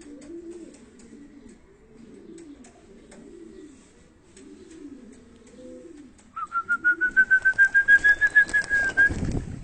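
Domestic pigeons cooing at the loft, then a loud, fast-pulsing whistle that rises slightly in pitch for about three seconds as the young pigeons are flushed into flight.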